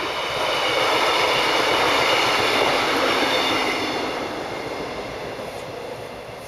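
A vehicle passing by: a loud, steady rushing that builds to a peak about two seconds in, then slowly fades away, with a faint high whine running through it.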